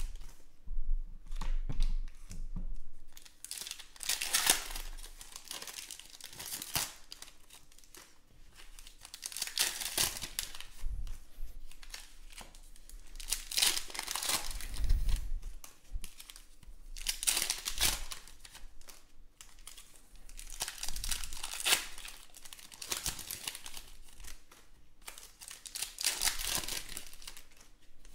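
Wrappers of Panini Contenders football card packs being torn open and crinkled by hand, in irregular bursts, as the cards are pulled out and handled.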